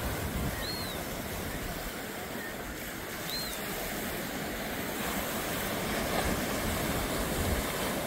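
Ocean surf breaking and washing over a rock jetty, a steady rush that grows a little louder in the second half.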